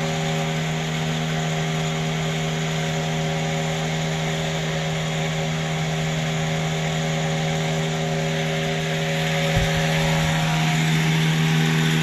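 An electric motor running steadily, a constant hum with a hiss, getting a little louder near the end.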